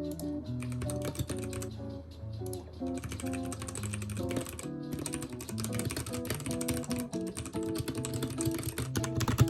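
Rapid computer keyboard typing, a dense run of light clicks, over soft lo-fi background music.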